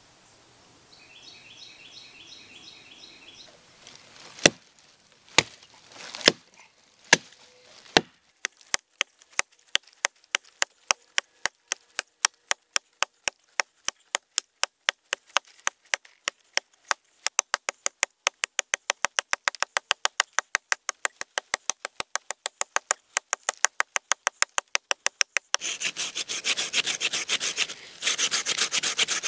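A Hardcore Hammers hatchet chopping into the base of a small standing tree. It starts with a few single strikes about a second apart, then settles into fast, steady chopping at about three strokes a second. Near the end it turns to a continuous scraping, rasping sound.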